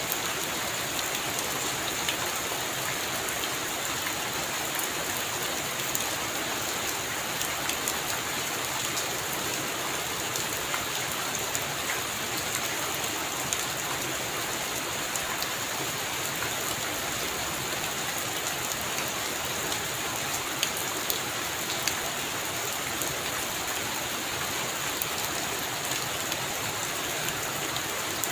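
Heavy rain falling steadily, an even hiss with many sharp little drop hits scattered through it.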